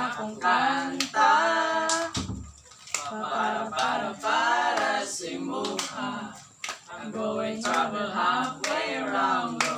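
Several voices singing a song together without instruments, with a clap or snap on the beat about once a second.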